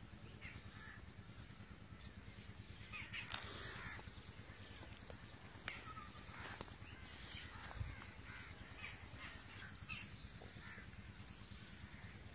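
Crows cawing, faint and intermittent, with a cluster of calls about three seconds in and a run of short calls later on, over a steady low rumble and a soft thump near the eight-second mark.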